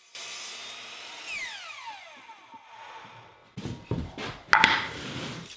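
Bosch miter saw running as it crosscuts a Douglas fir 2x4 leg to length, then the blade winding down with a falling whine. From about three and a half seconds in, wooden leg blanks knock and clatter as they are set down on a workbench; these knocks are the loudest sounds.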